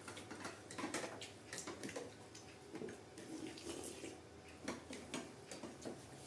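Faint, irregular small clicks and smacks of someone eating: chewing and mouth noises with light utensil taps, about a dozen scattered over the stretch.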